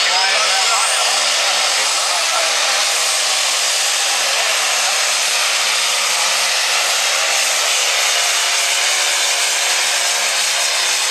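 Light pro stock pulling tractor's turbocharged diesel engine running at full throttle under heavy load as it drags the weight sled, a loud steady engine noise with a high whine that rises over the first second.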